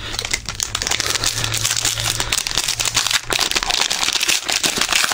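Plastic foil wrapper of a trading card pack crinkling steadily as it is handled and opened, a dense run of fine crackles.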